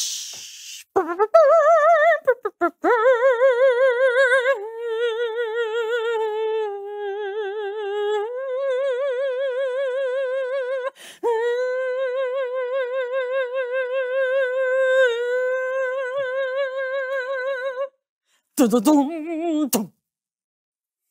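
A woman's voice singing a wordless, high melody with strong vibrato. It moves in long held notes that step up and down in pitch, breaks off briefly about eleven seconds in, and ends with a short falling note.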